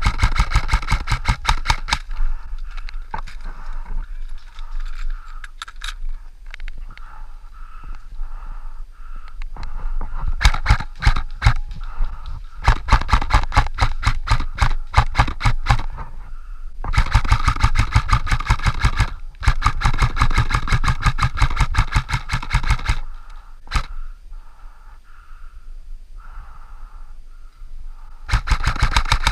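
Airsoft guns firing full-auto: rapid trains of shots in several bursts of a couple of seconds each, with short pauses between the volleys.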